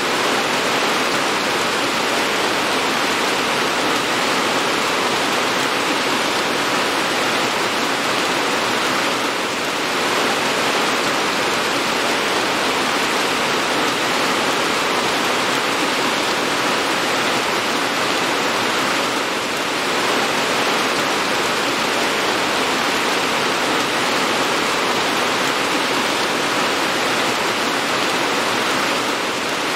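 Steady, dense rain falling, an even hiss of water with a slight dip in level about every ten seconds.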